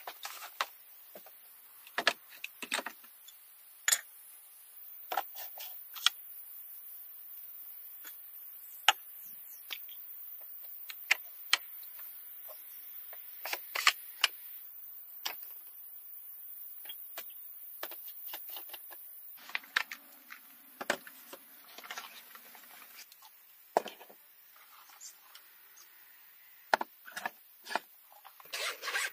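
Scattered clicks, taps and knocks of small items being handled and set down, with some soft rustling in between.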